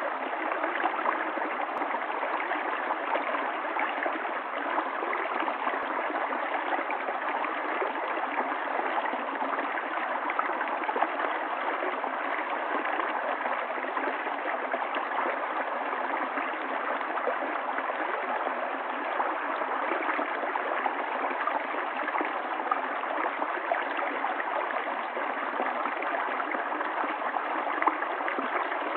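Stream water running and gurgling over rocks in a steady, even rush with a fine splashing texture and no changes.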